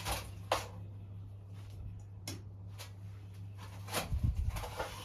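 Several sharp clicks and knocks from handling the ceiling fan while its reverse switch is flicked back, with a louder low bump about four seconds in, over a steady low hum.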